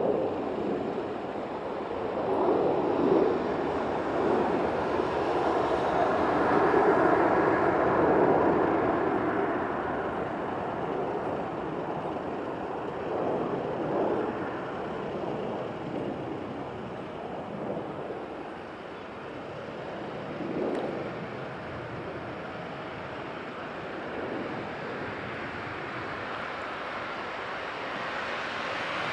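Airbus A319-132 jet engines rolling out on the runway after touchdown. The rushing engine noise swells to a peak a few seconds in, then dies away as the airliner slows.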